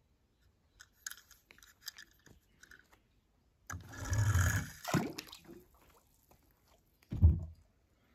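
Close handling noises of die-cast toy cars being picked up and set down on a foam sheet: light taps and scrapes, a longer rustle about four seconds in, and a short thump about seven seconds in.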